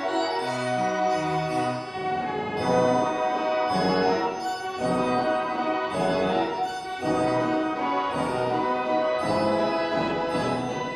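Fairground band organ playing a tune, its pipes and brass trumpets sounding together over a stepping bass line.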